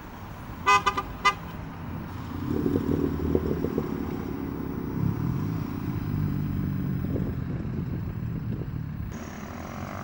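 Car horn tooted three times in quick succession about a second in, the loudest sound. Then car engines running and accelerating as cars drive past, the engine pitch rising and falling.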